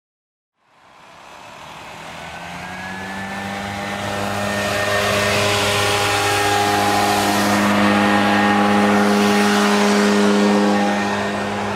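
A low, steady droning hum under a layer of hiss, rising out of silence and swelling over about four seconds to a loud, sustained level. A few held tones shift partway through.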